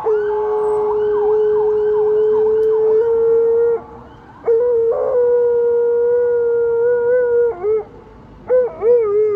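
Alaskan malamute howling in answer to a police car's siren, which wails faintly and fades out in the first second or so. Three long, steady howls with short breaks between them, the last one wavering up and down.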